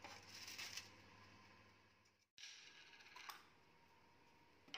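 Faint rustle and clicks of metal kitchen tongs lifting a scone off a parchment-lined baking tray, lasting under a second. After a brief dropout there is another short, faint handling rustle.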